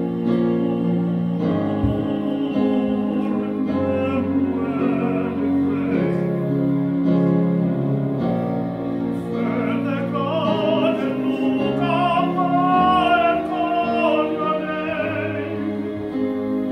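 Male vocal quartet singing a cappella in a classical style, low voices holding chords in close harmony. About ten seconds in, a higher voice carries a melody line with vibrato above them.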